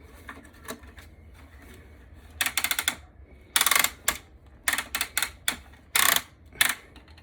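Milwaukee M18 fan being handled, its plastic body making four short bursts of rapid clicking and rattling.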